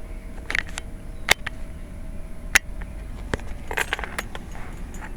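A handful of sharp clicks and light knocks, the two loudest a little over a second apart, over a low steady rumble.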